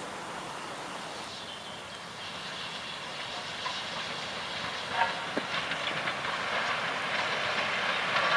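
LSWR T9 class 4-4-0 steam locomotive drawing nearer with its train, the noise of its running and its wheels on the rails growing steadily louder, with sharp clicks from about halfway through.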